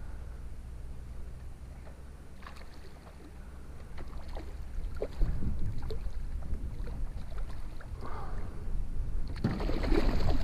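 A hooked rainbow trout splashing at the water's surface as it is brought to and scooped into a landing net, the splashing loudest near the end. Wind rumbles on the microphone throughout.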